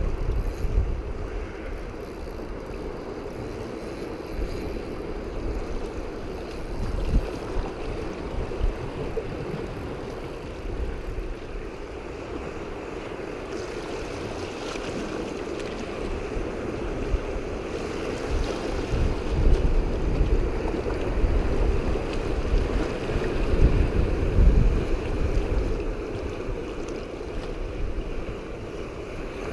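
Sea surf washing against shoreline rocks, mixed with wind buffeting the microphone in uneven low gusts that grow stronger about two-thirds of the way through.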